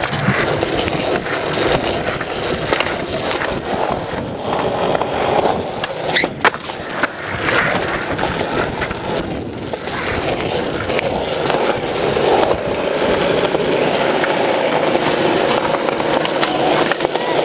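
Skateboard wheels rolling on smooth concrete, a steady rolling rumble, with a sharp clack of the board about six seconds in.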